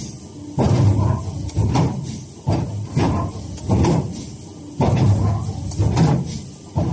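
WETRY M1050 automatic waste stripping machine cycling, about once a second a sudden knock followed by a short fading mechanical rumble, as it strips die-cut round tags from a sheet.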